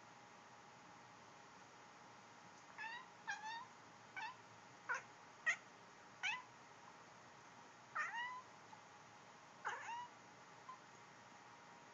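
Hiccups: a run of about eight short, high, squeaky hic sounds, each a quick drop in pitch, coming irregularly from about three seconds in.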